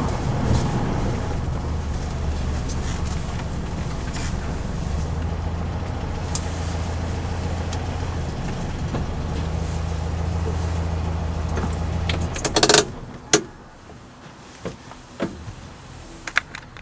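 Air-cooled Volkswagen Beetle flat-four engine running steadily, then cut off abruptly about twelve seconds in, followed by a few sharp clicks and knocks.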